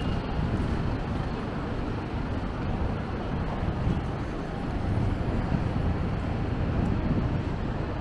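City street traffic: cars and buses running along a shopping street, a steady low rumble with no single event standing out.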